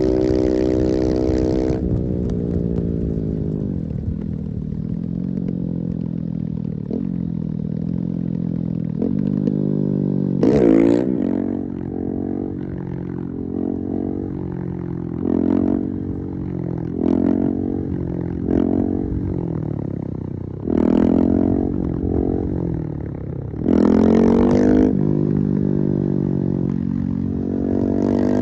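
Husqvarna 701's big single-cylinder four-stroke engine at high revs under full throttle, then dropping back. It picks up again in a series of short, sharp throttle bursts, with two longer high-rev pulls near the end and the revs climbing once more as it finishes.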